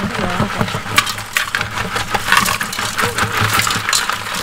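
Live ba khia mangrove crabs being tipped from a plastic bucket into an aluminium pot. Their shells and claws make a rapid, irregular clatter of clicks and scrapes against the metal and against each other.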